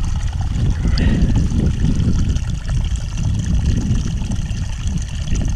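A person drinking straight from a small trickling mountain spring, mouth to the water among the rocks, with a heavy low rumbling noise under the water sounds.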